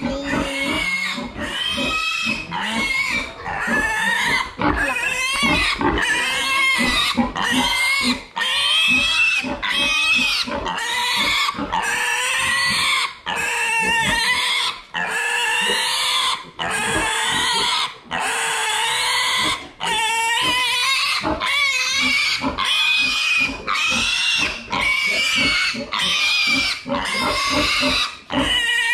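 Piglet screaming in distress, loud squeals repeating about once a second with short breaks between them, many rising in pitch. It is held upside down by its hind legs while being castrated.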